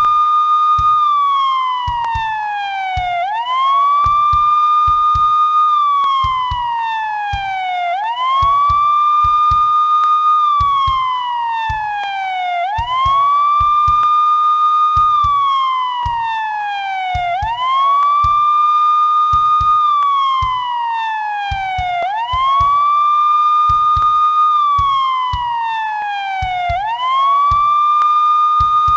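Police siren sounding a slow wail: each cycle climbs quickly, holds its high note for about a second, then slides slowly back down, repeating about every four and a half seconds.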